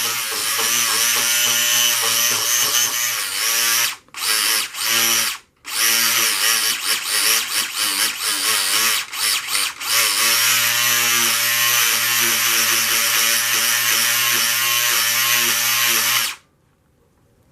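Carrera Digital 1/24 Porsche 917K slot car's small electric motor running flat out with a steady whine. It cuts out briefly twice about four and five and a half seconds in, stutters on and off a few times as the throttle is pulsed, then runs steadily until it stops suddenly near the end.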